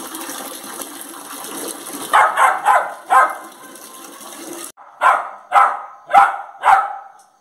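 Labrador puppy barking: four short barks about two seconds in, then four more from about five seconds in. Under the first group runs a steady hiss of running water that stops just before the second group.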